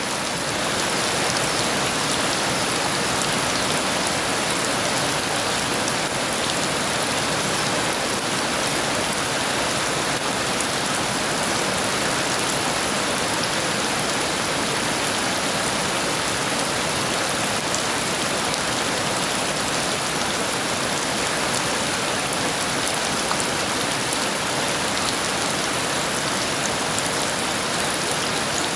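Heavy rain falling steadily, an even, unbroken hiss of downpour with no thunder.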